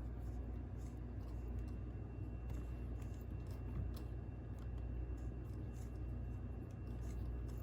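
Faint small clicks of a spark-plug socket and extension as a new spark plug is threaded by hand into the cylinder head, over a steady low background hum.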